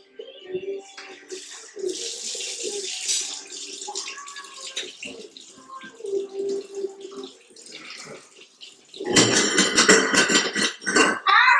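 Water running into a kitchen sink, turning much louder and fuller about nine seconds in.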